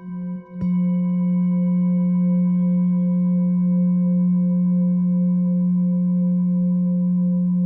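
Full moon singing bowl ringing with a deep hum and several higher overtones. It wavers in pulses about twice a second, then is struck once about half a second in and rings on at a steady, unfading level.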